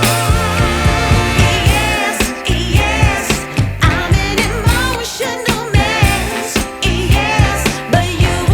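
Background music: a pop-soul song with a steady beat and a vibrato-laden singing voice.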